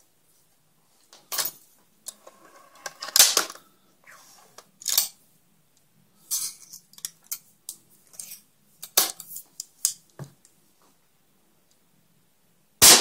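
Old spring-piston pellet gun being handled: scattered metallic clicks and clatters, with a rattling stretch a few seconds in. One sharp, loud crack near the end.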